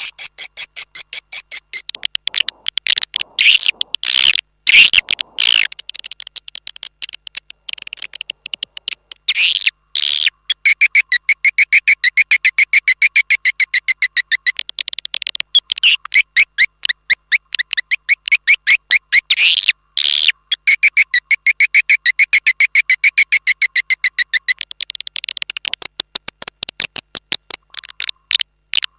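Swiftlet call recording: a fast train of chirps, about ten a second, with louder sweeping calls breaking in every few seconds. It is a lure sound (suara panggil) of edible-nest swiftlet calls, played to draw swiftlets into a nesting house.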